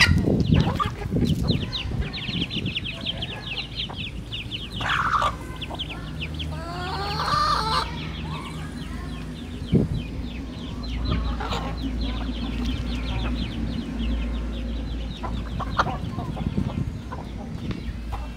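Chickens and roosters clucking while they peck at feed on the ground, with a fast run of short high chirps through the first half and a low steady hum setting in about five seconds in.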